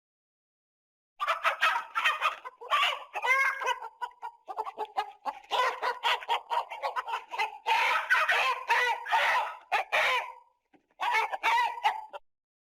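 Chickens clucking in a dense run of calls, starting about a second in, with a short break near the end.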